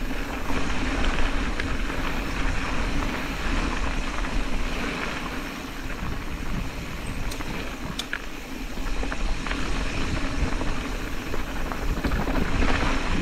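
Specialized Status 140 mountain bike's tyres rolling and crunching over a loose dirt and gravel trail on a descent, with steady wind noise on the microphone. A few sharp clicks and rattles come from the bike over the rough ground.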